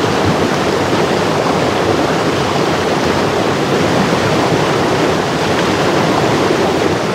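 Rocky mountain stream rushing over boulders in a steady, loud rush of water.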